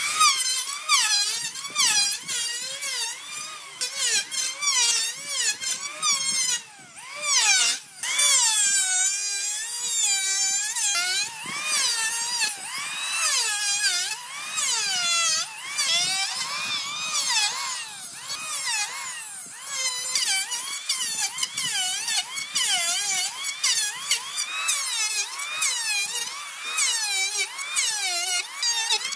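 Electric hand planer cutting wood, its motor whining high with the pitch repeatedly dipping and recovering as the blade takes load on each stroke.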